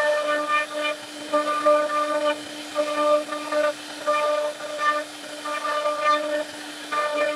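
CNC router spindle running with a steady whine as its bit carves a relief pattern into a wooden panel. A brighter, higher tone with overtones comes and goes in irregular stretches of under a second while the cutter works through the wood.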